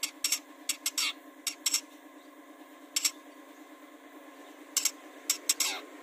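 Long-tailed shrike giving short, harsh calls in quick clusters, some notes sliding downward: a run of calls in the first two seconds, a single one about three seconds in, and another cluster near the end.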